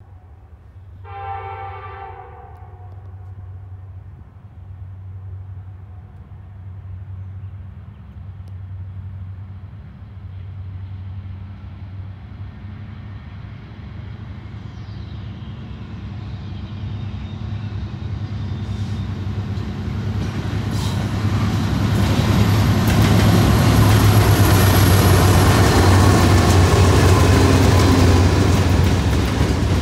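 Norfolk Southern freight train led by eight diesel locomotives approaching: a short chord of a locomotive air horn about a second in, then the low diesel engine drone grows steadily louder until the locomotives pass in the last third with loud wheel-and-rail noise.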